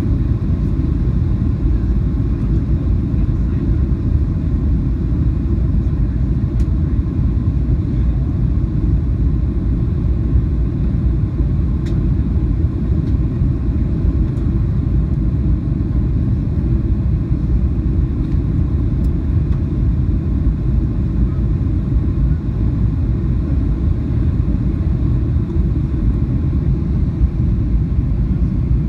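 Steady low rumble inside a Boeing 737-800 cabin on descent: the CFM56-7B engines and the airflow over the fuselage, heard from a window seat.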